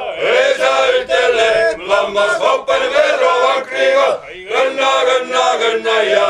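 Men's choir singing a Seto leelo, several male voices singing together, with a short breath pause about four seconds in.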